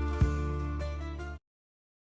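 Background music on plucked strings, cutting off suddenly about one and a half seconds in, followed by dead silence.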